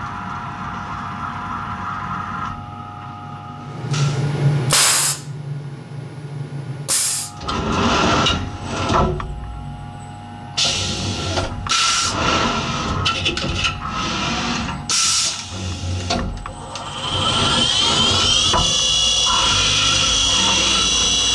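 Mini vertical machining centre changing tools, with short sharp air blasts and clunks from the tool change. About three quarters of the way through, the spindle spins up with a rising whine that settles into a steady high whine.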